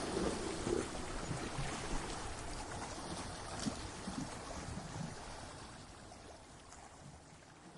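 Ocean surf against rocks: the rush of a broken wave's water fading steadily away over several seconds.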